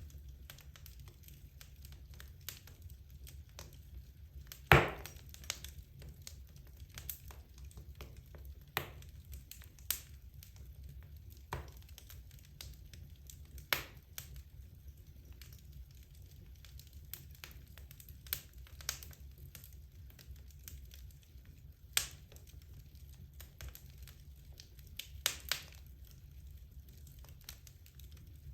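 Wood logs burning in a fireplace: a low steady rumble of the flames with scattered crackles and sharp pops, the loudest pop about five seconds in.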